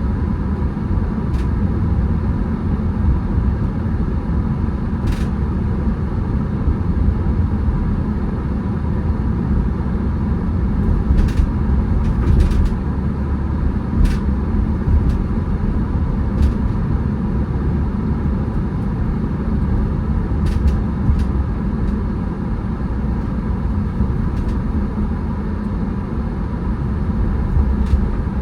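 Car driving, a steady low road and engine rumble, with a few scattered sharp clicks.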